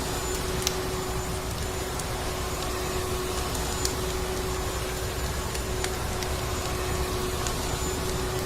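Vacuum cleaner running steadily with a constant hum, with a few scattered crackles of a wood fire over it.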